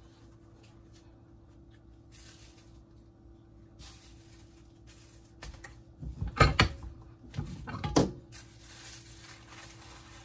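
Kitchen handling noises: light clicks and rustling, then two loud knocks about six and a half and eight seconds in, over a faint steady hum.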